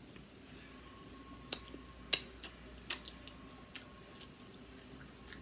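Close-up eating sounds from a seafood boil: a handful of sharp clicks and cracks of shell and mouth, the loudest about two seconds in.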